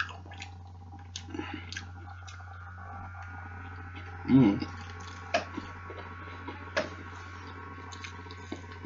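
Close-up chewing and biting of a cheeseburger: wet, squishy mouth sounds and small clicks. There is a short vocal sound about four seconds in, over a steady low hum.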